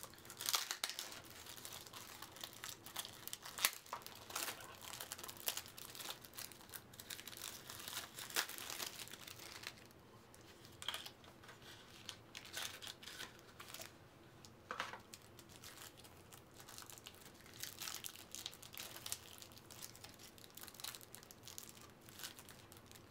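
Plastic and foil packaging of a trading-card pack crinkling and tearing as it is opened. The crackling is busiest in the first half and thins out to scattered crinkles later.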